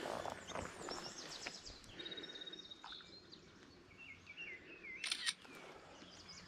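Songbirds singing faintly: quick high chirps, one held whistle and some wavering notes. A short camera shutter click comes about five seconds in.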